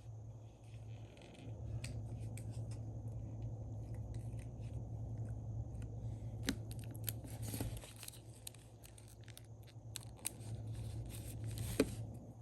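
Paper stickers and washi tape being handled on a desk: scattered light clicks and rustles, busier around the middle and near the end, over a steady low hum.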